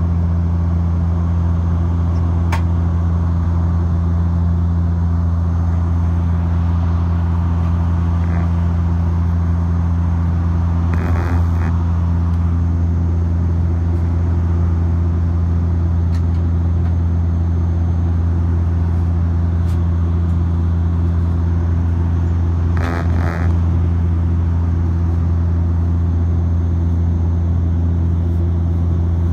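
Cabin noise of a Porter Dash 8 Q400 turboprop airliner in flight: a steady deep propeller drone with a hiss of engine and airflow noise, unchanging throughout.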